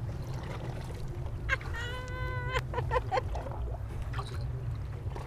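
Steady low rumble of wind and surf at the shoreline. About two seconds in, a brief high held tone sounds, along with a few light clicks.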